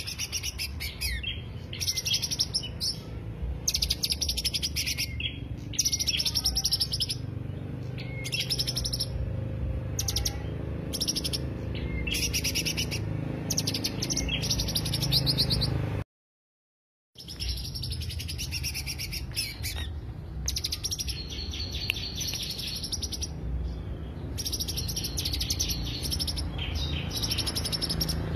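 Cucak hijau (leafbird) singing in short bursts of rapid, trilled chattering phrases over a steady low hum. The sound cuts out completely for about a second midway, then the song resumes.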